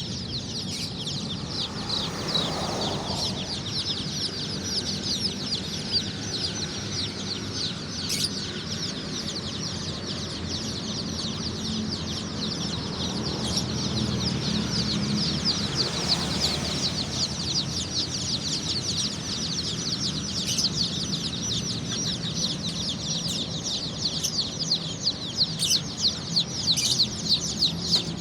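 A large crowd of ayam kampung (Indonesian village chicken) chicks peeping together: a dense, continuous mass of high, short, falling peeps, many overlapping each second.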